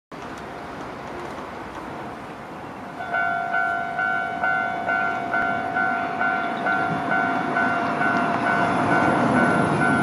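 Japanese railway level-crossing warning bell starting about three seconds in, ringing a two-tone electronic ding about twice a second, over a steady background hiss that swells near the end. The bell signals an approaching train.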